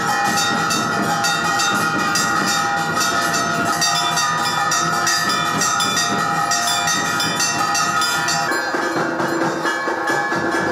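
Temple bells clanging rapidly and continuously during aarti lamp-waving, a dense run of strikes under several sustained ringing tones. The mix shifts about two seconds before the end.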